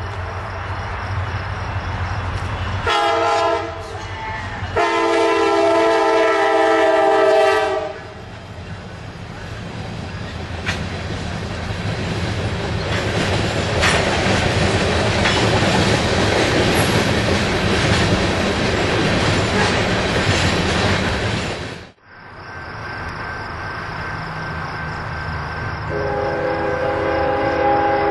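Locomotive air horn sounding a short blast and then a long one, ending the grade-crossing warning, followed by the train passing, wheels clattering over the rails. The sound cuts off suddenly about two-thirds of the way through; a lower steady rumble follows, and a steady chord of horn-like tones comes in near the end.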